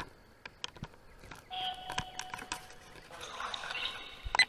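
Spirit box sweeping through radio stations: irregular clicks with short bursts of static and brief held tones, the clicks coming thicker near the end.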